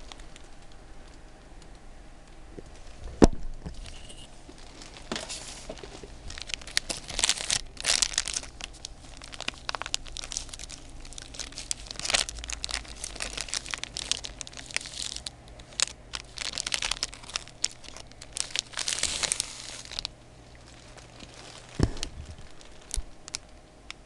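Hands tearing apart a breadcrumb-coated fried curry bun on its plastic wrapper: irregular crinkling of the wrapper and crackling of the crisp crumb crust and bread. A sharp click comes about three seconds in.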